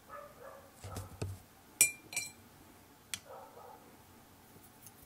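A watercolour brush tapped against a hard cup or dish: two light, ringing clinks close together about two seconds in, after a couple of soft knocks.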